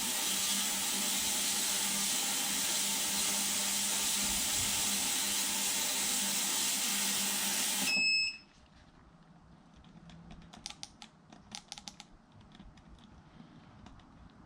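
A loud, steady hiss with a low hum beneath it stops abruptly about eight seconds in with a short high beep. Faint clicks and taps follow.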